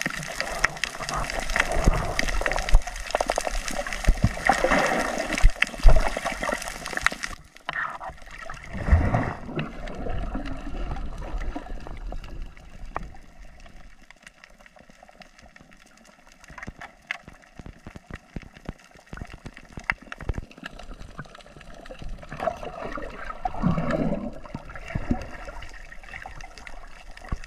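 Underwater sound of divers in the water: gurgling and bubbling water with many sharp ticks and crackles. It is loud and dense for the first seven seconds, drops abruptly to a quieter wash with scattered ticks, and swells again twice, briefly about nine seconds in and for a couple of seconds near the end.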